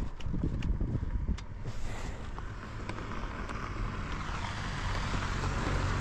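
A few light clicks and knocks, then a motor vehicle's engine noise building steadily, with a faint falling tone in the middle and a steady low hum near the end.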